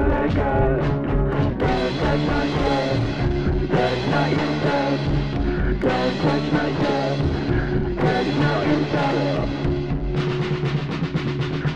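Home-recorded punk rock song playing loud and steady: a drum kit beating under instruments.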